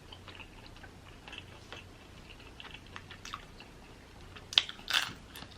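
Close-miked chewing and biting of crispy fried chicken wings, small wet crunches and clicks, with two louder crunches near the end.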